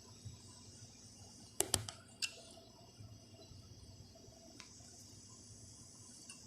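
A few light metallic clicks from a thread tap and needle-nose pliers being handled: two close together about a second and a half in, one more just after, and a faint one later. They sit over a faint, steady high hiss.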